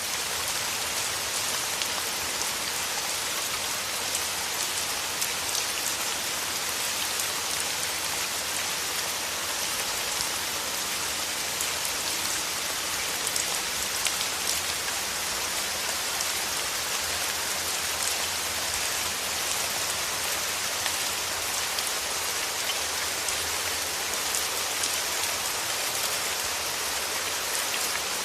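Steady rain falling on a hard surface, an even hiss dense with the patter of individual drops.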